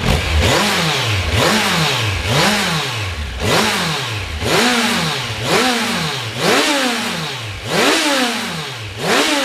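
Kawasaki Versys 1000's inline-four engine with its stock muffler, blipped repeatedly in neutral toward about 7,000–7,500 RPM, each rev rising quickly and falling back, about once a second.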